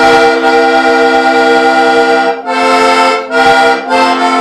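Diatonic button accordion (heligónka) playing a folk tune in held chords, with brief breaks where the chords change, about two and a half and three and a half seconds in.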